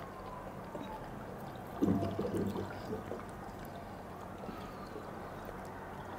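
Water being poured, with a faint falling pitch as it runs. A brief louder, low muffled sound comes about two seconds in.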